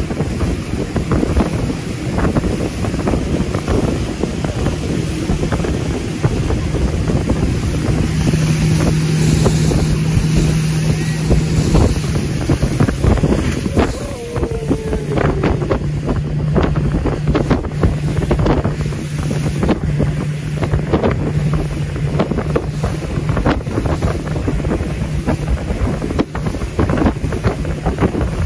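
Motorboat under way on open water: the engine runs with a steady low hum, heavy wind buffets the microphone, and water spray and splashing come off the hull, with a burst of spray about halfway through.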